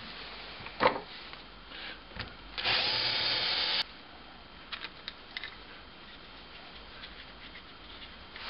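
Cordless drill running for about a second, drilling out a screw hole in a thin plywood strip to clearance size, then stopping abruptly. A light knock comes a second before it, and small clicks after it.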